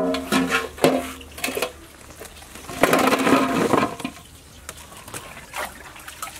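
Aluminium basin clanking and ringing as it is set down and handled, then a rattling rush about three seconds in as a basketful of eggfruit is tipped into the metal basin.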